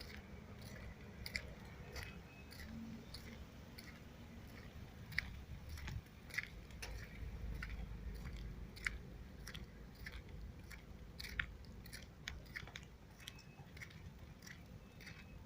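A person chewing and eating food close to the microphone, with irregular sharp crunches and clicks.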